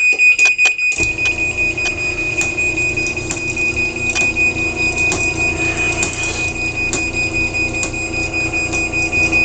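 Craftsman half-horsepower garage door opener's timer-to-close warning beeper sounding loudly, a high rapidly pulsing beep. About a second in, the opener's motor starts and runs steadily on the closing cycle, with the beeping continuing over it.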